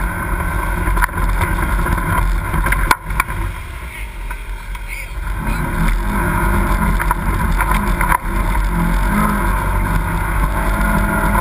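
Polaris RZR XP side-by-side's twin-cylinder engine running as it drives a rough dirt trail. It eases off for a couple of seconds about three seconds in, then picks up again, with a few sharp knocks over bumps.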